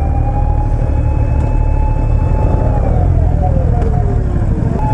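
Emergency vehicle siren wailing: one long high tone that holds for almost three seconds, slides down in pitch and starts again at the very end. A steady low rumble runs underneath.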